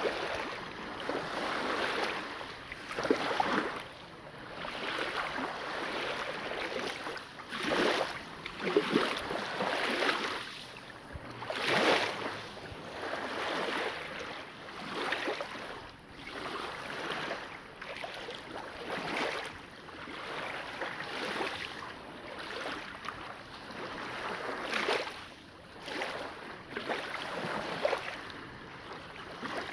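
Small waves lapping and washing onto a fine-gravel shore, swelling and fading every second or two.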